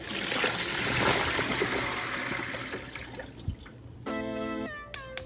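A loud rushing hiss starts suddenly and fades away over about three seconds, then music begins about four seconds in.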